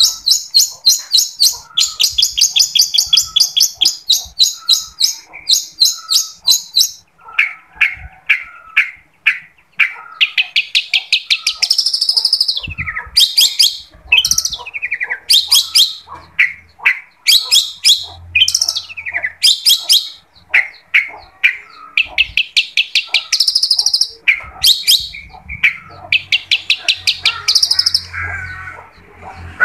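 Long-tailed shrike (cendet) in full song: fast runs of sharp, high repeated notes, several a second, broken by harsh chattering phrases and quick rising and falling whistles.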